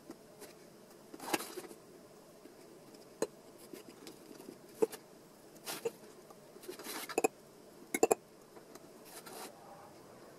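A small brush scratching and dabbing against a skateboard wheel and the white mould bed around it, with scattered light clicks and taps. The sharpest is a quick double click about eight seconds in.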